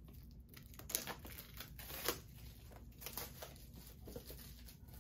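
Plastic shrink wrap being torn and peeled off a Blu-ray SteelBook case, crinkling, with sharper crackles about once a second.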